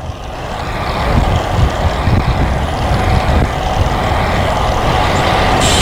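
Wind buffeting the action-camera microphone of a moving road bike. It is a loud rushing that swells over the first second or so and then holds steady.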